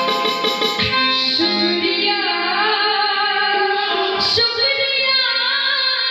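A woman singing a Bhojpuri song live, her voice bending and wavering over sustained electronic organ chords, with a couple of brief percussion strokes.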